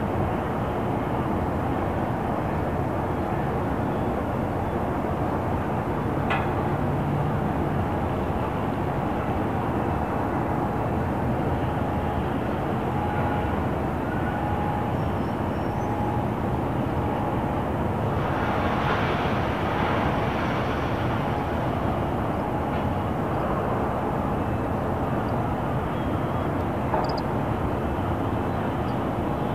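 Calm harbour ambience dominated by a steady low rumble of distant road traffic, with a faint steady hum under it. A brief brighter sound rises and fades about nineteen seconds in, and there are a couple of faint clicks.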